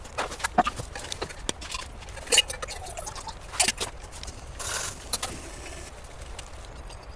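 Irregular light knocks and clicks, a few a second, with a short hiss about two-thirds of the way through.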